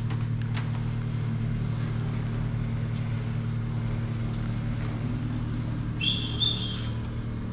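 A steady low mechanical hum. A short, high two-part chirp comes about six seconds in.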